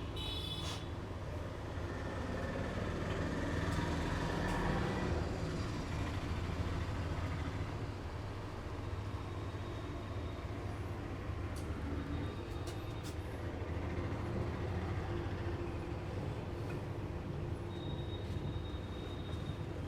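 Steady low background rumble, like distant traffic, swelling for a moment about four seconds in, with a few faint clicks and a short faint high tone near the end.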